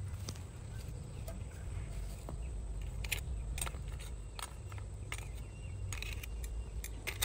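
Metal tongs turning steamed snails in a woven basket steamer, the shells clicking and clattering against the tongs and each other several times from about three seconds in, over a low steady rumble.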